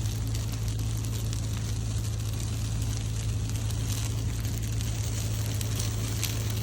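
Burning brush crackling with dense, irregular snaps over a loud, steady low hum.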